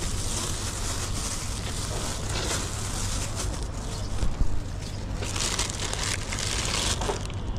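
Thin plastic bag crinkling and rustling in the hands off and on, loudest from about five to seven seconds in, over a steady low rumble.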